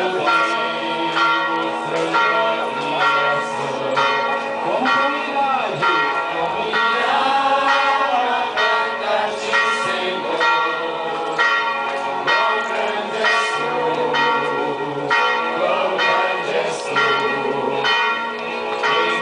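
Church bells ringing in a steady peal of quick, regular strikes, about one and a half a second, each note ringing on into the next. Voices from the crowd are heard underneath.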